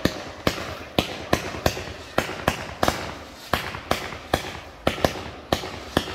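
Fireworks launching in a rapid volley: sharp bangs about three a second, each followed by a short echo.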